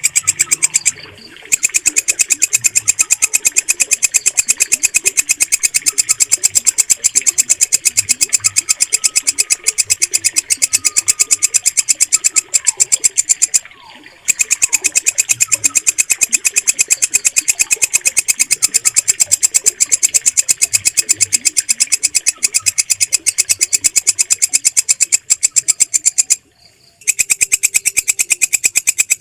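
Walang kecek katydid stridulating: a loud, unbroken train of rapid, sharp clicking pulses, stopping briefly about a second in, about halfway, and near the end. Faint bird chirps sit underneath.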